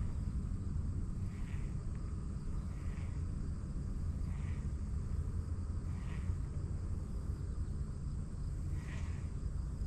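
Riverbank ambience: a steady low rumble, with a short chirp repeating about every one and a half seconds and a faint steady insect drone high up.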